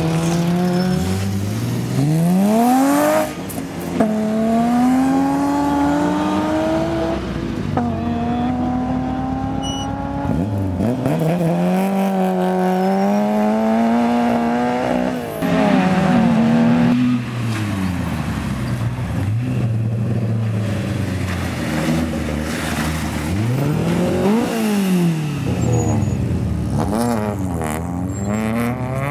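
Peugeot 205 rally car engines accelerating hard through the gears, one car after another. The pitch climbs through each gear and drops sharply at every shift, over and over.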